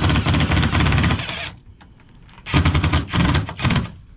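Power impact driver hammering a mount bolt tight with a fast, continuous rattle that stops suddenly about a second and a half in. It follows with a few short bursts as the bolt is snugged down.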